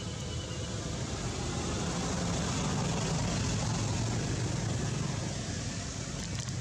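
A passing vehicle: a steady rushing rumble that swells to its loudest around the middle and eases off toward the end.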